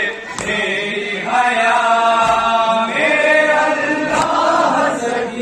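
A man chanting a noha, a Shia mourning lament, amplified through a microphone, in long held, wavering notes. Sharp slaps of hands striking chests in matam land about every two seconds, in time with the chant.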